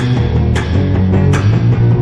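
Psychobilly band recording: guitar and bass guitar over drums, with a sharp drum or cymbal hit about every three-quarters of a second.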